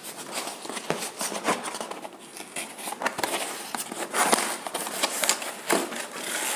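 Cardboard shipping packaging being torn and pulled open by hand, with irregular rustling, crinkling and crackling, somewhat louder about four seconds in and near the end.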